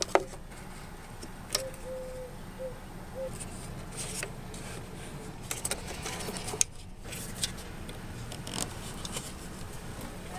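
2007 Chevy Aveo's four-cylinder engine running at idle as a steady low rumble, with scattered sharp clicks and knocks over it.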